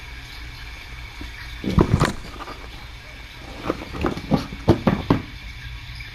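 A steady low hum with a faint high tone over it, broken by short soft knocks: a quick cluster about two seconds in and a longer run of five or six about four to five seconds in.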